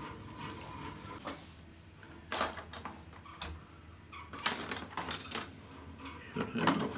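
Stainless-steel cutlery clinking and rattling in a kitchen drawer's tray as a hand rummages through it: scattered sharp clicks, busiest about four to five seconds in.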